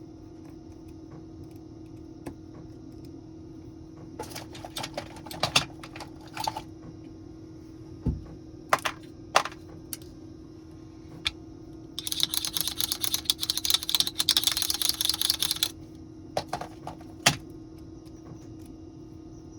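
Light clicks and taps of small hand tools working on a smartphone, with a dense run of rapid clicking and scratching lasting about four seconds a little past the middle, over a steady low hum.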